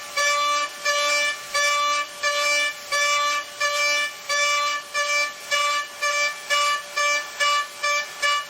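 A pitched tone pulsing on one steady note about twice a second, evenly spaced, like a repeated beep or a looped musical note.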